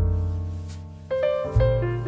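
Background music: piano chords over deep bass, with new chords struck about a second in and again past the middle.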